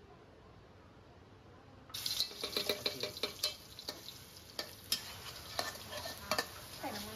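Stir-frying in a wok: a metal spatula scrapes and clicks against the wok as garlic, chili and minced chicken sizzle in hot oil, starting about two seconds in after a quiet start.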